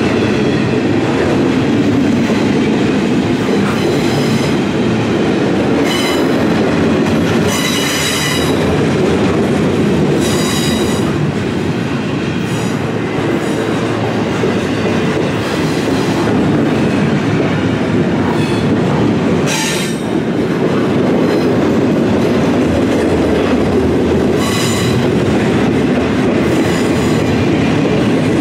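Double-stack intermodal freight train rolling past close by: a steady rumble of steel wheels on rail. Short high-pitched metallic wheel squeals break in several times.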